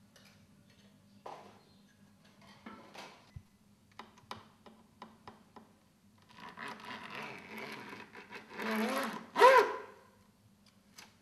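Light clicks and knocks of wooden beehive frames and wire being handled. About six seconds in comes a few seconds of louder rasping noise, ending in a short cry that rises and falls in pitch, the loudest sound.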